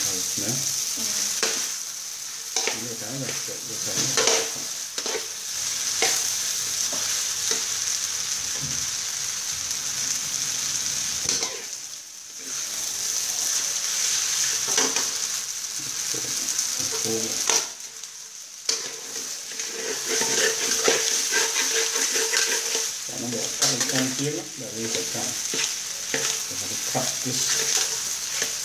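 Glass noodles, minced pork and vegetables sizzling in a hot metal wok as they are tossed with metal tongs and a metal spoon, with frequent scrapes and clinks of the utensils against the pan. The sizzle drops away briefly twice.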